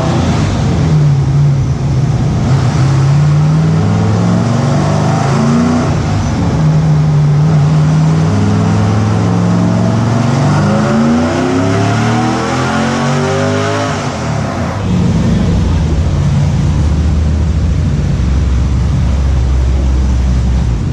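6.0-litre LS V8 with LS3 heads running a wide-open dyno pull in third gear: the revs climb, rising steadily to a peak about 14 seconds in, then fall back to a lower steady run.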